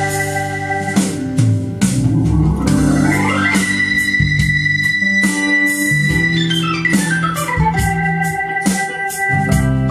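Electronic music with organ-like keyboard chords and a beat, played back through a stereo receiver and speakers; a pitch sweep rises about three seconds in and another falls from about six seconds.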